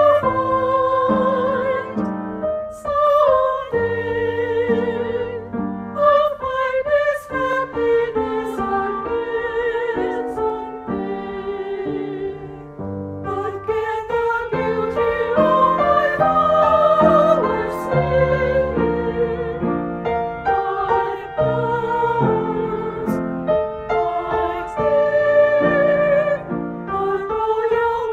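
Female choir voices singing a slow, legato melody in unison and harmony with vibrato, accompanied by piano.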